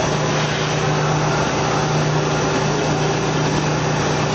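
Kraft paper making machine running: a steady low hum under an even, unbroken noise of its rollers and drives.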